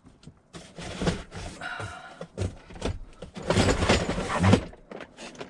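Boxes being shifted around in the back of a van: a run of irregular knocks, scrapes and rustles, busiest about two thirds of the way through.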